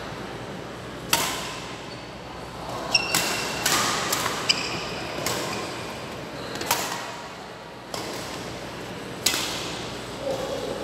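Badminton rally: rackets striking the shuttlecock in sharp cracks about every one to two seconds, each echoing in the large hall, with brief squeaks of court shoes on the floor in the middle.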